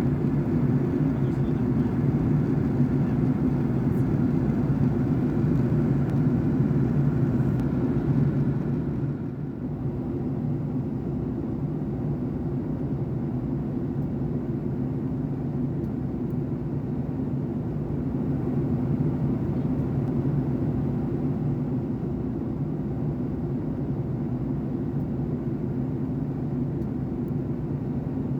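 Steady cabin drone of a Boeing 757-200 in cruise flight, engine and airflow noise heard from a passenger seat. It eases off a little about nine seconds in, then holds steady.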